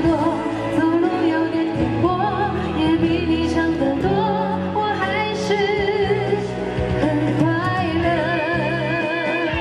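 A woman singing a Mandarin pop ballad live into a handheld microphone, with vibrato on the held notes.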